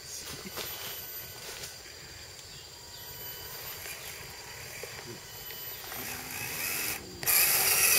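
RC4WD Trail Finder 2 Hilux 1:10 scale RC crawler working slowly over logs: its small electric motor and geared drivetrain whine faintly, with small knocks of the tyres on the wood. Near the end a louder rustling scrape comes in, the tyres scrabbling over bark and dry leaves.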